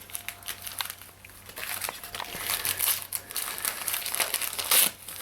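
Gift-wrapping paper crinkling and rustling as a small present is unwrapped. It gets louder about a second and a half in, with the loudest crackle near the end.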